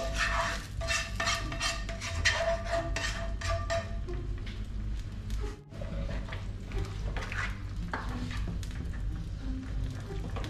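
A black spatula scraping tomato sauce out of a frying pan into a metal saucepan, with quick repeated scrapes and knocks against the pan during the first few seconds, then slower stirring of the stew in the pot with occasional clinks on the metal.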